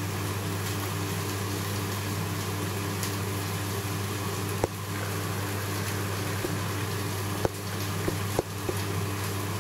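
Reef aquarium's pumps and circulating water making a steady hum and hiss, with a faint regular pulsing in the hum. A few sharp clicks sound about halfway through and near the end.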